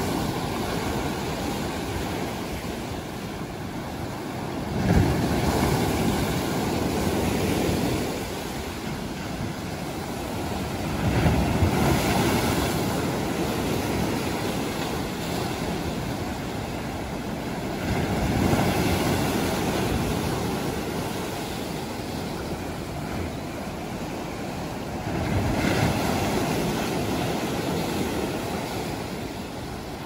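Sea waves breaking over rocks and washing up a sandy beach, the rush swelling into a louder surge about every six or seven seconds and slowly fading between them.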